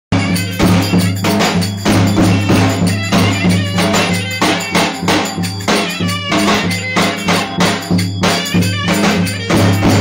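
Davul, a large double-headed bass drum, beaten in a lively dance rhythm of about three strikes a second, with hand-held wooden clappers clacking along. A steady low tone sounds under the beat throughout.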